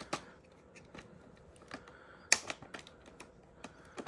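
Scattered sharp plastic clicks and knocks from handling a Dyson V8 cordless vacuum and its cleaner head, with the motor not running; the loudest click comes a little over two seconds in.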